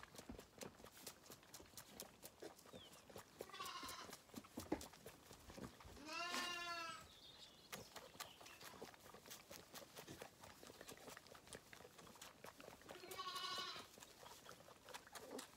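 Zwartbles lambs bleating three times, the loudest and most wavering bleat about six seconds in, the others near four and thirteen seconds. Faint clicks and rustles run between the bleats.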